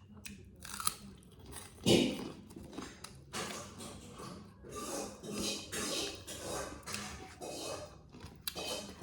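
Close-up chewing and eating sounds from someone eating chicken curry with rice: irregular wet mouth noises and bites, with one louder bite about two seconds in.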